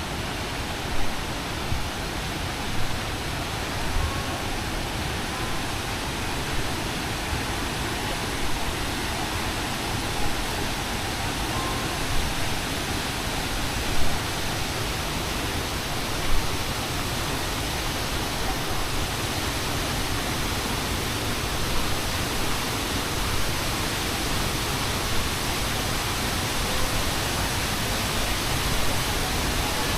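Waterfall water rushing in a steady, even noise, with a few brief knocks or bumps over it.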